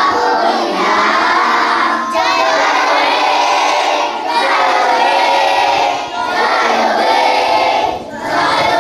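A large group of children singing together in unison, in phrases about two seconds long with short breaths between them.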